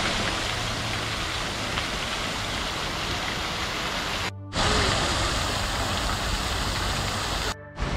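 Water of a two-tiered stone fountain pouring and splashing from the upper basin into the lower one, a steady rushing hiss, cut off briefly twice, around the middle and near the end.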